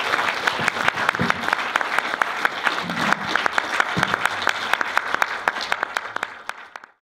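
Audience applauding, a dense patter of hand claps that fades away near the end.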